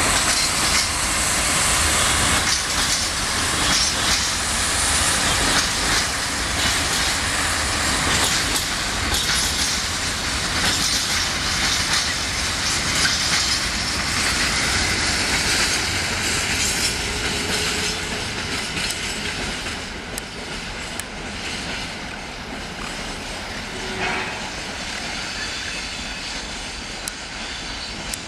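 Long freight train's wagons rolling past, wheels clacking steadily over the rail joints, the sound falling away over the last several seconds as the train draws off.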